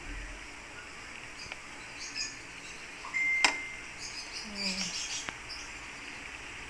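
A utensil strikes the rim of a metal steamer pot once, about halfway through, giving a single sharp clink with a brief ringing ding. Faint, short high chirps are scattered around it.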